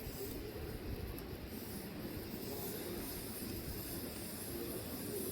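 Burning logs in a wood fire: a steady low rushing noise with faint scattered crackles.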